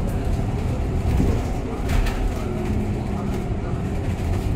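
Cabin ride noise inside a BYD/ADL Enviro400 City battery-electric double-decker bus on the move: a steady road and tyre rumble with body and fitting rattles, including a sharp knock about two seconds in. There is no engine note, only a brief low hum around the middle.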